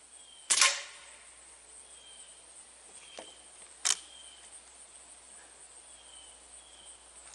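A Beeman QB78 .22 CO2 air rifle fires once about half a second in, a sharp crack, followed about three seconds later by two shorter clicks. Insects keep up a steady high buzz with short repeated chirps throughout.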